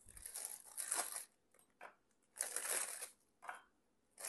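Rustling and crinkling as ladyfinger biscuits and their packaging are handled and laid into a dish, in three short bursts, the longest about a second.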